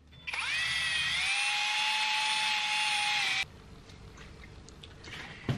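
Cordless Ryobi rotary tool with a small wire brush spinning up with a rising whine, then running steadily for about three seconds as it scrubs surface rust off a steel wheel hub face, before cutting off abruptly.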